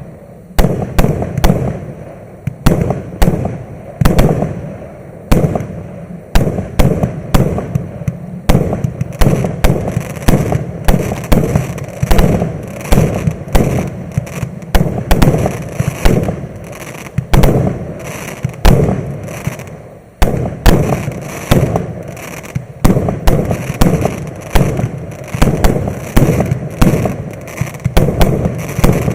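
Maxsem MC146 'Explosive' fireworks battery firing a rapid, unbroken string of shots, about two loud bangs a second, each with a short decaying tail.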